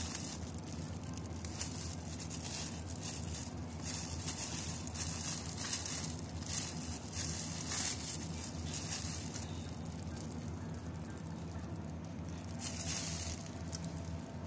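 Plastic wrap around a head of lettuce crinkling and rustling in bursts as it is handled, over a steady low hum.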